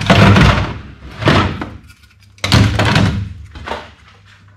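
Toy rifles dropped one after another into a hard plastic storage crate: four clattering thuds about a second apart, the last one softer.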